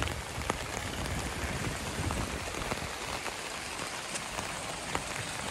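Steady rain falling, with scattered sharp ticks of drops striking close by and a low rumble underneath.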